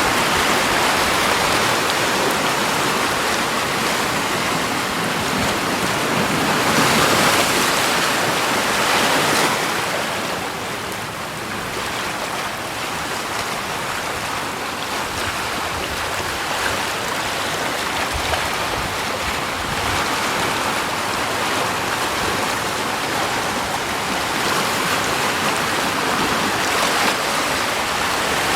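Steady rushing of moving water, swelling a little louder a couple of times in the first ten seconds and then easing slightly.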